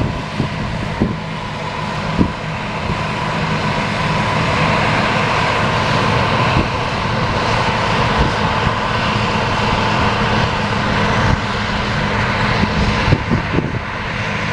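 John Deere self-propelled forage harvester running under load while chopping silage corn: a steady engine drone under a rushing crop noise that swells over the first few seconds. A few sharp knocks come near the start and again near the end.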